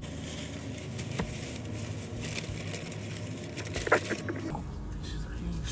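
Rustling of a plastic bag and paper food wrappers being handled inside a car cabin, over a steady low hum, with one sharp click about four seconds in.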